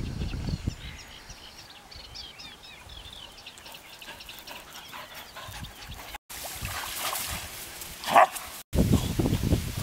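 A dog gives one short, loud bark about eight seconds in, as two dogs tussle in play. Faint high chirps come in the first half, and low rumbling noise follows the bark near the end.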